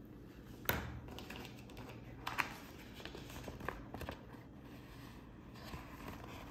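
A hard plastic phone case set down on a tabletop with a sharp knock, then a few lighter taps and clicks. Near the end, a softer rustle as a glossy sticker sheet is lifted and handled.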